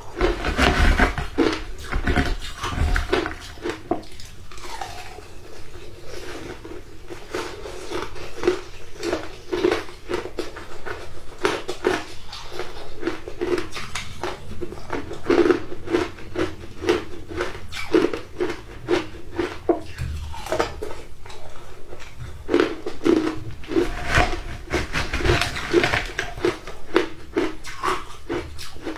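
A person biting and chewing shaved ice: a continuous run of crunches and crackles, with louder bites near the start and again about three-quarters of the way through.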